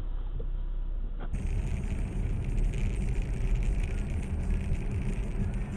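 Steady low road and engine rumble of a moving car, heard through a dashcam's microphone; the sound changes abruptly about a second in as a new recording begins, with the same kind of low, even rumble.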